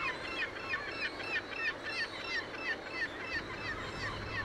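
Herring gull chicks begging for food from a parent: a fast run of short, high, falling peeps, about three or four a second, with several chicks calling over one another.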